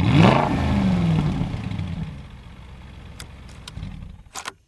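Aston Martin Vantage engine firing up with a quick rev flare that rises and falls, then settling to a lower steady idle after about two seconds. A few sharp clicks come near the end.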